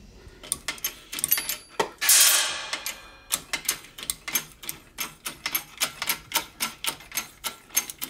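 Vortech supercharger shaft being pressed out of its ball bearings in a hydraulic press: a sharp burst of noise about two seconds in, then a fast irregular run of sharp clicks as the bearing gives way.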